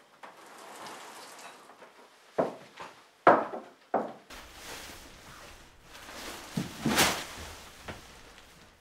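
A dining chair being handled, knocking against the floor three times a bit under a second apart; the middle knock is the loudest. Then a steady hiss with a low rumble, and one sharper knock near the end.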